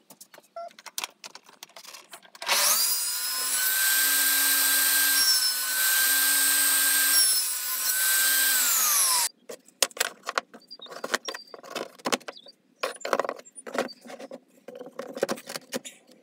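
Table saw starting up and running with a steady whine, its pitch dipping slightly twice, then falling in pitch and cutting off at about nine seconds. Before and after it, a scatter of light knocks and clicks of wood being handled.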